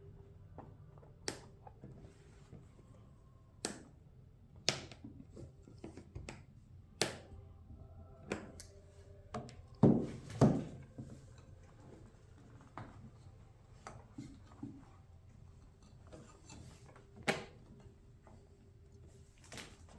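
Scattered clicks and knocks of hand tools and parts being handled during work on a lawnmower, with two louder knocks close together about ten seconds in.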